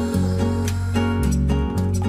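Instrumental background music: a plucked-string tune over held bass notes.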